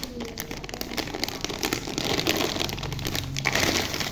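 Parcel packaging crinkling and rustling as it is handled and unwrapped by hand.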